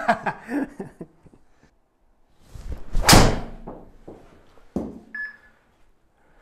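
A TaylorMade Qi10 driver is swung and strikes a golf ball about three seconds in: a single loud crack, the loudest sound here. A smaller sharp knock follows about two seconds later.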